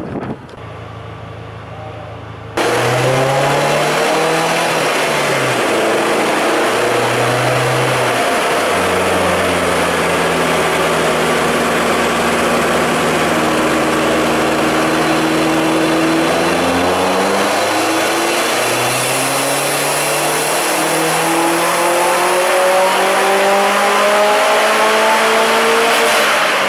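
Subaru WRX STI race car's turbocharged flat-four engine running on a chassis dyno, starting suddenly after a couple of seconds: a few short rises and falls in revs, then a long held run, a brief drop, and a steady climb in pitch through the last several seconds of the pull.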